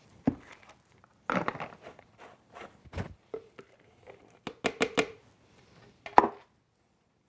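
Knocks and clinks of a glass mixing bowl and plastic containers handled on a tabletop as weighed soda ash powder is tipped from the bowl into a plastic jug, with a louder knock near the end.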